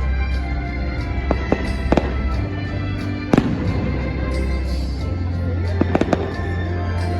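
Fireworks bursting with sharp bangs, a few close together and the loudest about a third of the way in, over loud show music with held notes and a deep steady bass.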